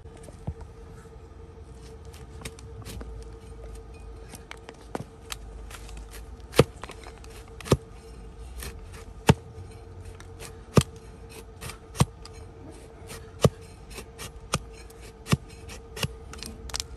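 Long-handled hoof-trimming knife shaving horn from a donkey's hoof against a wooden block: a run of sharp, crisp cuts and scrapes. The loudest strikes come about every second to second and a half in the second half. A faint steady hum lies underneath.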